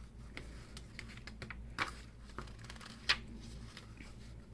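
Light handling noises from a book held by a young reader: a few soft clicks and paper rustles, the sharpest about three seconds in, over a steady low hum.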